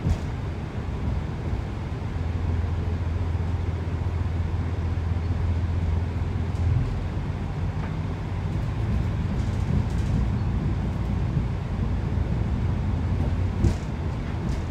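Interior noise of a Class 165 Networker Turbo diesel multiple unit: a steady low diesel drone with rumbling running noise and a couple of short knocks, near the start and near the end.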